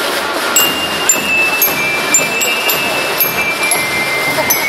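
Marching music with bright, bell-like high notes ringing out over a steady bed of crowd chatter.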